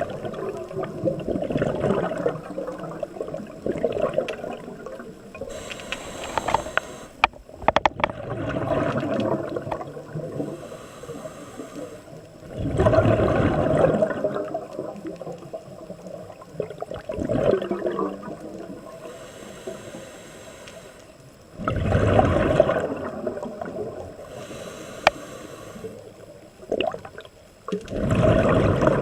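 Scuba diver breathing through a regulator underwater: three loud rushes of exhaled bubbles several seconds apart, with gurgling and a few sharp clicks between.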